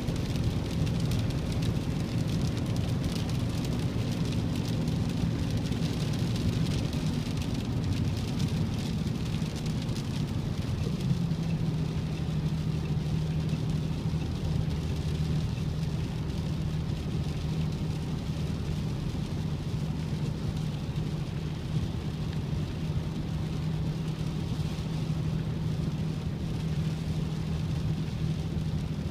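Inside a car driving in heavy rain: a steady engine hum and road noise, with rain and spray hissing against the windshield and body. The engine note drops to a lower steady tone about eleven seconds in.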